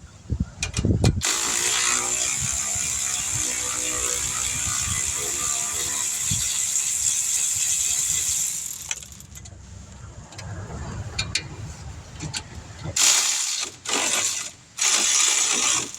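Power tool turning a socket on a rusted brake caliper bracket bolt: a steady run of about seven seconds, then quieter clicks, then three short bursts near the end.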